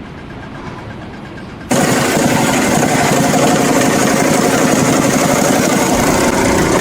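An engine running loudly and steadily, cutting in abruptly about two seconds in after a quieter stretch.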